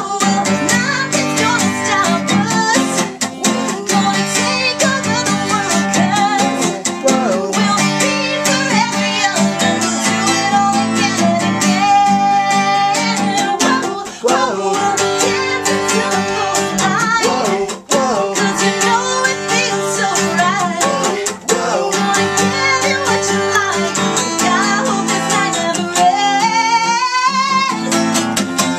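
A woman singing an upbeat song while strumming chords on a steel-string acoustic guitar.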